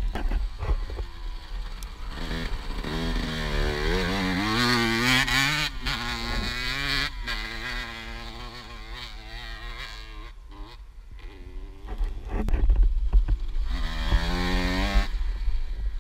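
Dirt bike engine revving hard on a motocross track, its pitch climbing with each burst of throttle and dropping at the shifts. It fades in the middle as the bike gets farther off, then comes back louder near the end, revving up again as it approaches.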